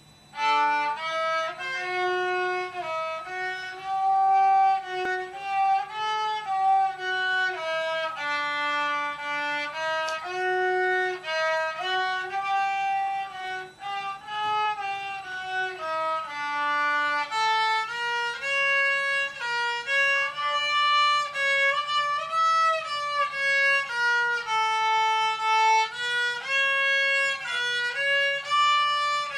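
Solo violin played with the bow: a melody of held notes moving step by step, which shifts up into a higher register about halfway through.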